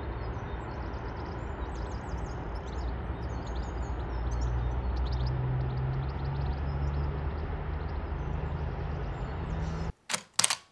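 Outdoor city ambience: a steady low rumble of distant traffic with an engine hum that steps up slightly in pitch, and faint birds chirping high above it. It cuts off near the end, and a camera shutter clicks twice.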